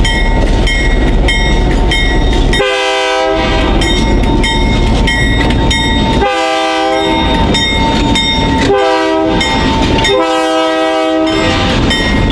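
Diesel locomotive air horn blowing the grade-crossing signal, long, long, short, long, over the low rumble of the passing train. A fast, evenly repeating ding sounds throughout.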